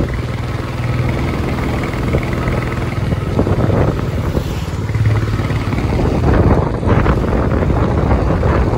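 Royal Enfield Himalayan's single-cylinder engine running steadily while the motorcycle is ridden along the road, carrying a rider and two pillion passengers.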